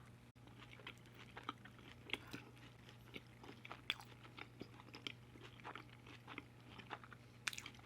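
Faint, close-miked chewing of saucy fries topped with melted cheese and caramelized onions: many small soft clicks and smacks of the mouth. A steady low hum sits underneath.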